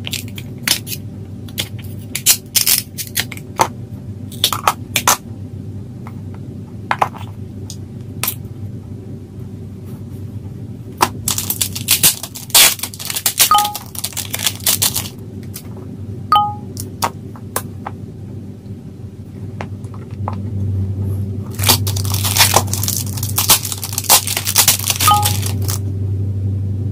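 Packaging being handled and opened by hand: plastic and paper crinkling and tearing in two longer bursts, with many scattered clicks and taps of plastic between them.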